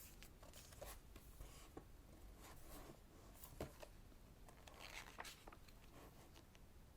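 Faint rustling and soft paper handling: the glossy pages of a large photobook being touched and turned, in short scattered swishes.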